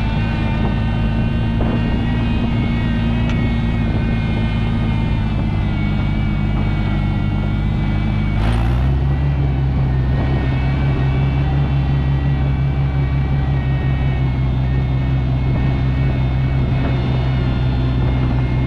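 Oliver 880 tractor's six-cylinder gasoline engine running steadily under way. About eight seconds in its pitch drops slightly and it gets a little louder, then holds steady.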